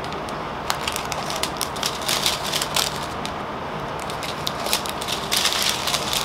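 Scissors cutting apart a strip of small plastic bags of round resin diamond-painting drills, the plastic crinkling in irregular crackles and clicks.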